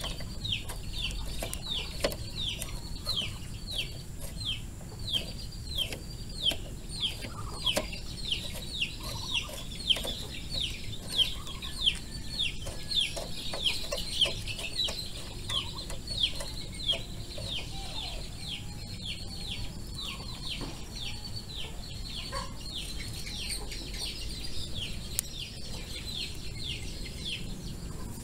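A bird chirping over and over: short, high, falling chirps, about two or three a second, keeping an even pace.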